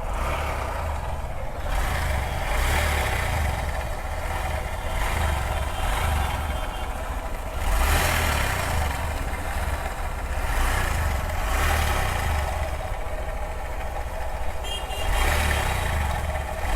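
Honda SP 125's single-cylinder engine running, rising and falling in repeated swells every couple of seconds, with an abnormal engine noise that the mechanic suspects comes from the cylinder head or the clutch chamber.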